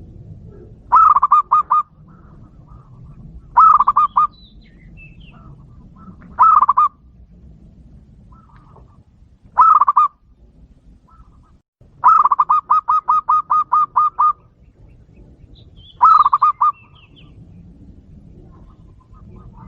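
Zebra dove (perkutut) cooing in six phrases of quick, evenly repeated notes. One phrase about two-thirds of the way through runs longer, with about a dozen notes.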